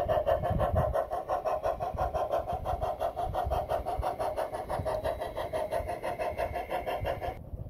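Garden-railway model Climax geared steam locomotive running with its train, giving a rapid, even chuffing beat of about six or seven a second. The sound cuts off suddenly near the end.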